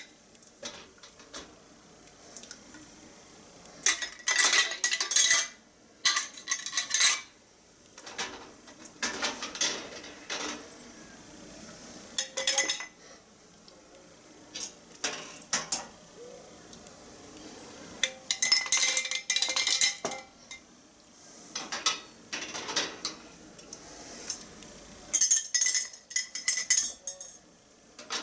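Metal canning lids and screw bands clinking and clattering against an enamel canning pot and its wire rack as they are fished out of hot water with a magnetic lid lifter. The clatter comes in short bursts every few seconds with quiet gaps between them.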